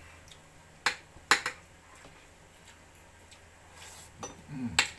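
A spoon and fork clink against dinner plates during a meal: a few sharp clinks about a second in and one more near the end, with a brief low voice sound just before the last clink.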